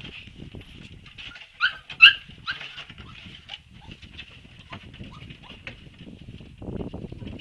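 Siberian husky puppies whining in high, thin squeaks, with three louder yelps around two seconds in. Low scuffling noise runs underneath and grows louder near the end.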